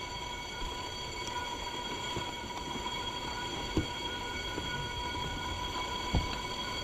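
A steady mechanical whine of several fixed high tones, with two light knocks about four and six seconds in.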